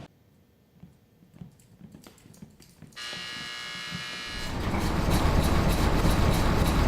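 A prison cell-block buzzer sounds about three seconds in. About a second later a loud, heavy rumble and clatter of steel cell doors rolling open builds and keeps going.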